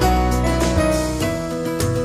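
Background music: instrumental with piano or keyboard notes over a bass line.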